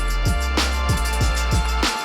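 Background music with a steady beat: electronic bass-drum hits falling in pitch over held tones.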